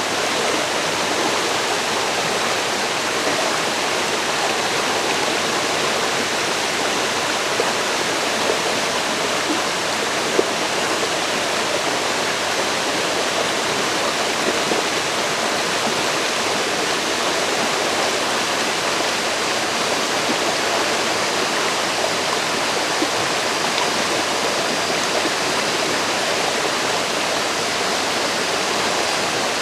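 River water rushing and splashing over rocks in a steady, unbroken flow, with small splashes now and then.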